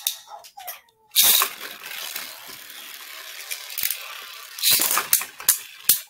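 Beyblade launchers ratcheting as two spinning tops are launched into a plastic stadium: one about a second in and another near the end. A steady hiss from the spinning top fills the time between.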